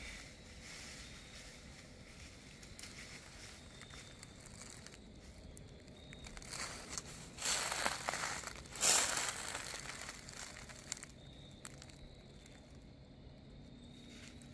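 Dry fallen leaves crunching and rustling as they are trodden and pressed, with a louder run of crunches about halfway through.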